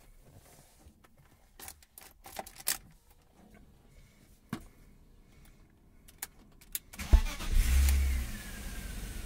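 A few faint clicks, then about seven seconds in the BMW M52 straight-six starts, flares up briefly and settles into a steady idle, with a whine falling in pitch as it settles. The engine is running on fresh oil with the oil-pressure warning light still on while the oil is pumped through the new filter.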